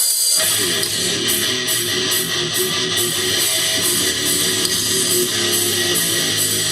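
Live rock band starting a song: electric guitar, bass and drums come in together about half a second in, with cymbals keeping a steady beat.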